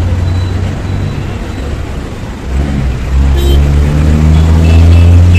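A small goods truck's engine running close by, easing off and then revving up with rising pitch from about halfway through, amid street traffic. A brief high-pitched sound cuts in about three and a half seconds in.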